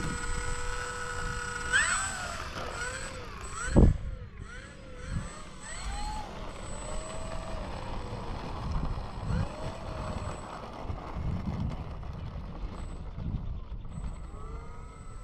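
Brushless electric motor and propeller of an E-flite P-51 Mustang 1.2m RC plane taxiing. It starts as a steady whine, then rises and falls in pitch with the throttle from about two seconds in. There is a sharp thump just before four seconds, and low gusts of wind on the microphone throughout.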